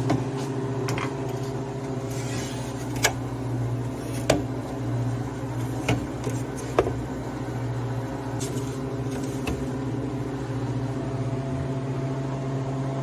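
Home freeze dryer's refrigeration compressor running, a steady hum while it pre-cools the drying chamber. A few sharp clinks and knocks come through it, about four between roughly three and seven seconds in, as metal trays of frozen food are handled.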